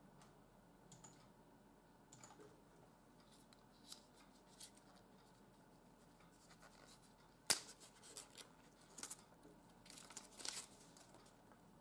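Faint handling sounds: a sharp click about seven and a half seconds in, then the rustle and crinkle of thin plastic protective film being peeled off a GoPro camera near the end.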